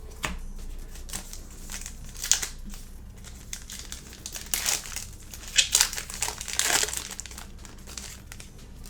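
Plastic foil wrapper of a trading-card pack crinkling and crackling in irregular bursts as it is torn open and handled, busiest in the middle of the stretch.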